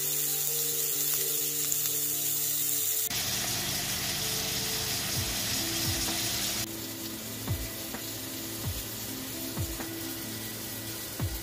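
Ground beef patty sizzling in a nonstick frying pan, over background music. About six and a half seconds in it gives way to a potato being peeled with a vegetable peeler, one scraping stroke about every second.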